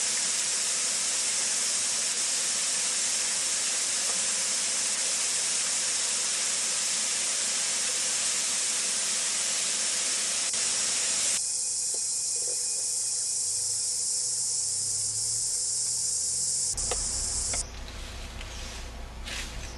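Steady rushing hiss of a waterfall. About eleven seconds in the lower part of the rush fades and only a high steady hiss is left; near the end this gives way to a quieter low rumble.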